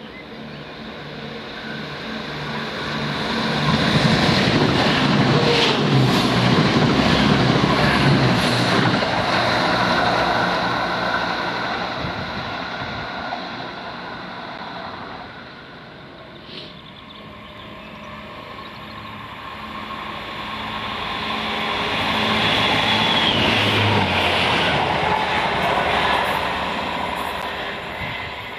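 Two Chiltern Railways diesel multiple units passing at speed one after the other, a Class 168 Turbostar and then a Class 165 Networker Turbo. Each brings a build-up of engine and wheel-on-rail noise: the first is loudest about four to ten seconds in and fades away, and the second swells to a peak about twenty-two to twenty-six seconds in and then fades.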